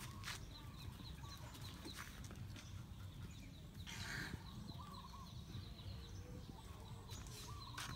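Chickens clucking, with a steady run of faint high cheeps, about three a second, and a short rustle about halfway through over a low steady rumble.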